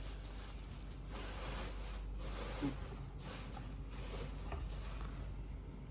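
Rubbing and scraping as packaging and statue parts are handled, in short irregular strokes.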